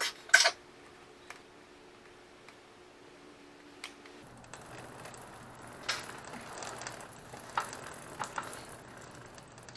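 Scattered sharp metallic clicks and knocks of hand tools on motorcycle parts during chain and brake reassembly. The two loudest come right at the start, with a few more spread through the rest.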